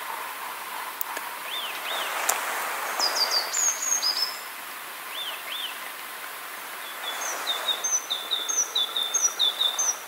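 Small songbirds singing: a couple of paired up-and-down whistles and a quick descending phrase, then a run of about eight short repeated notes near the end, over steady background noise.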